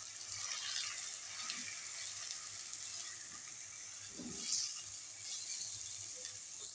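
Raw chicken pieces sizzling in hot oil and fried onions in a clay pot as they are browned, stirred with a wooden spatula; one louder stirring sound about four seconds in.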